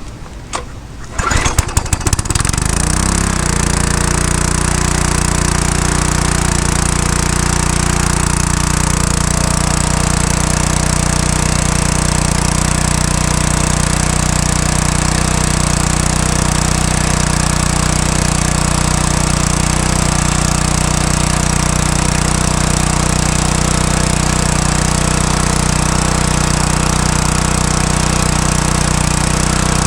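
Pressure washer's Briggs & Stratton 500 series single-cylinder engine being pull-started: it catches about two seconds in, revs up to speed and then runs steadily. It starts readily, a good start after sitting unused for a long time.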